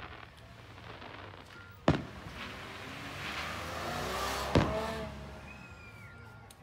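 Aerial fireworks shells bursting overhead: two sharp bangs about two and a half seconds apart, with a swelling hiss between them.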